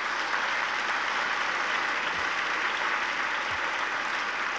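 Audience applauding steadily, the clapping at full strength throughout.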